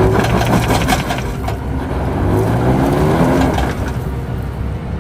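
Truck engine revving hard under load, its pitch rising twice, with tyres crunching and grinding over loose dirt and rock as the stuck truck strains to climb out.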